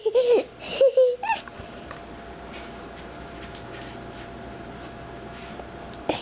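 A few short voice sounds in the first second and a half, then steady room tone with a faint constant hum.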